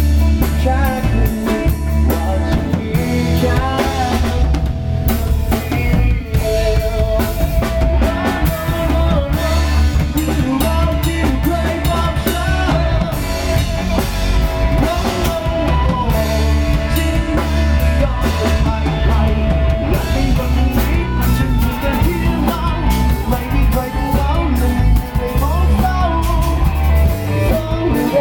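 Background music with a drum-kit beat and heavy, steady bass under a wavering melodic line.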